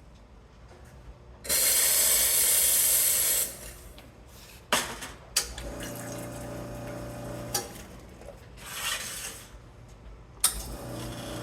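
Nuova Simonelli Aurelia II three-group espresso machine being run: a loud hiss lasting about two seconds, then sharp clicks and the pump humming steadily with water flowing. A shorter hiss follows, then a click as the pump hum starts again.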